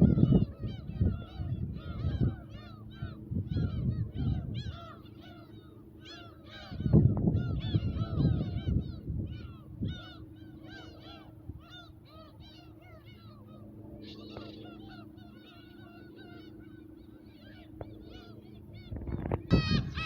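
A large flock of black-tailed gulls calling, many short arched cries overlapping throughout. Gusts of wind rumble on the microphone at the start, around seven seconds in, and again near the end.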